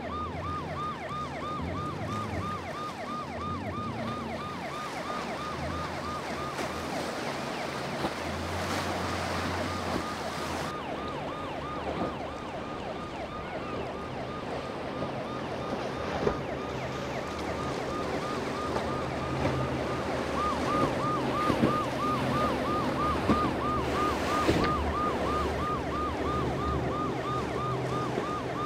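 Police boat siren yelping, a fast warbling tone that repeats about four times a second; it drops away for several seconds midway and comes back. Under it run a low outboard-motor hum and the wash of wind and water.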